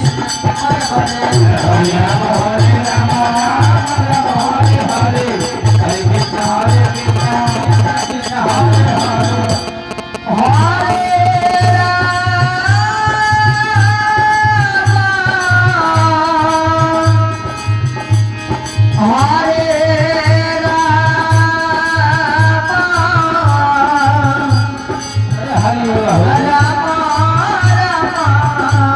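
Hindu devotional kirtan: a male voice singing long, gliding held notes over a steady hand-drum beat with jingling percussion. The music drops out briefly about a third of the way in, then resumes.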